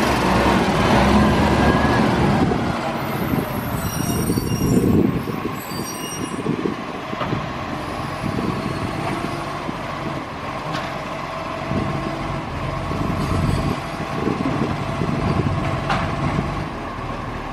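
Garbage truck's diesel engine running, louder for the first couple of seconds and then settling to a steadier rumble.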